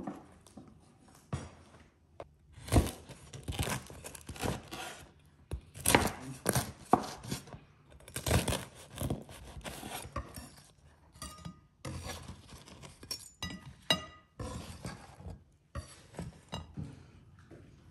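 A kitchen knife cutting through crusty baked khachapuri and knocking on a wooden cutting board, in a string of crunches and knocks. Ceramic plates and cutlery clink as slices are set out, with a few short ringing clinks toward the middle.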